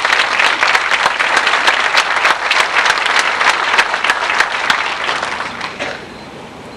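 Audience applauding, many hands clapping, tapering off about six seconds in.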